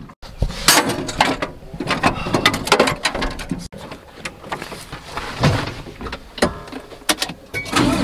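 A run of irregular knocks and clicks as someone climbs into a tractor cab: steps, handling and the cab door's handle and latch, with a low rumble underneath.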